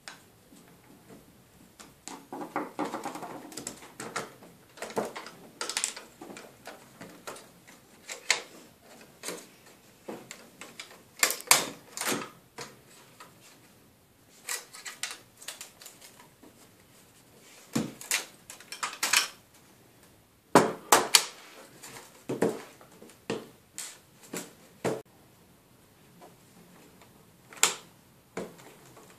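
Irregular clicks, taps and light knocks of a BMW satellite navigation unit being taken apart by hand, as screws are removed from its front-panel hinges and small metal and plastic parts are handled and set down. There is a short scraping rustle about two seconds in.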